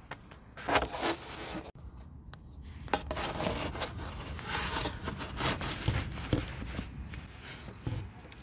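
Irregular scraping and rustling handling sounds, with a few sharp clicks and knocks.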